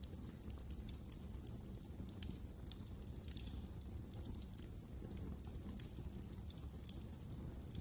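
Wood fire burning in a fireplace, crackling with many irregular sharp pops and snaps over a steady low rumble.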